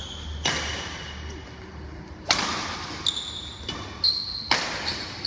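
Badminton rally: rackets striking the shuttlecock with sharp, echoing smacks, three loud hits about two seconds apart, with short high squeaks in between.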